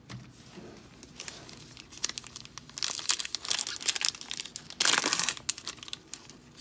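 Wrapper of a Topps baseball card pack being crinkled and torn open by gloved hands: a dense crackle that grows about two seconds in, with the loudest tear about five seconds in.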